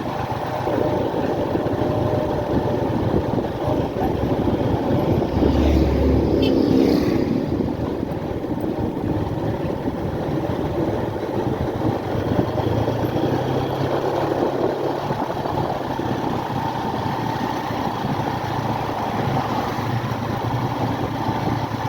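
Motorcycle engine running at low, steady revs while the bike rides down a short slope, with road noise. About six seconds in, a louder low rumble swells up and fades.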